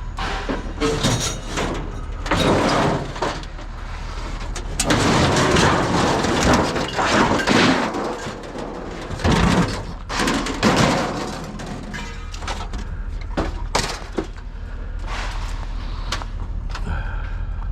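Scrap being handled: irregular clattering, scraping and knocks, busiest through the middle, over a steady low hum.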